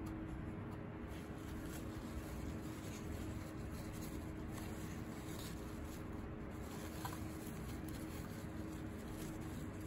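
Faint rustling and crinkling of tissue paper being unwrapped by gloved hands, over a steady low room hum.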